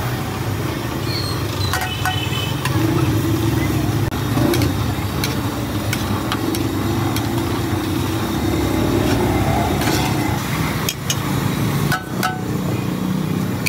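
Street traffic noise: a steady low engine rumble with scattered sharp clicks and knocks, and a brief dip near the end.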